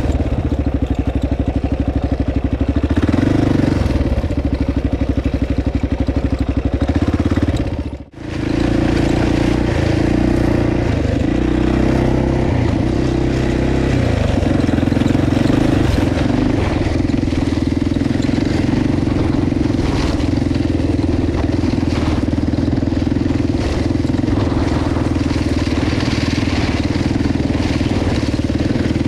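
Kawasaki KLR650's single-cylinder four-stroke engine running steadily while the bike is ridden. The sound drops out for a moment about eight seconds in, then the engine carries on as before.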